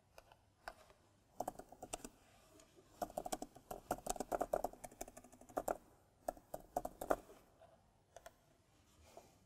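Typing on a computer keyboard in short bursts of keystrokes, followed by a few single clicks near the end.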